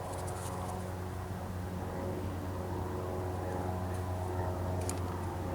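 An engine running steadily with an even low hum, with a few faint clicks over it.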